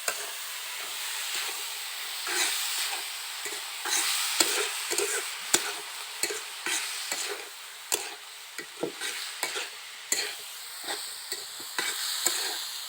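Chopped, boiled banana flower being stirred in a hot pan: a cooking utensil repeatedly scraping and knocking against the pan in irregular strokes over a steady sizzle of frying.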